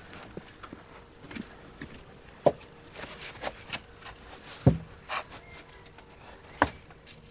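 Scattered wooden knocks and thumps with some rustling: a wooden shed door being opened and things being shifted about on wooden shelves. There are three sharp knocks, and the loudest comes a little past halfway.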